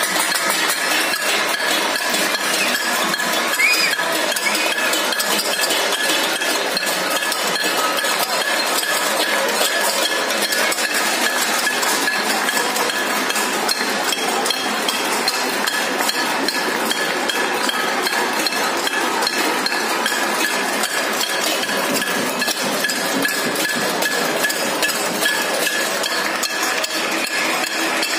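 Many neighbours on surrounding balconies banging steel plates and utensils and clapping, in salute to essential workers: a dense, continuous metallic clatter with a few steady ringing tones over it.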